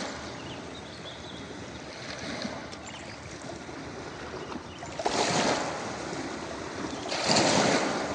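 Ocean waves washing onto a beach, a steady hiss of surf with two louder surges, about five and seven seconds in.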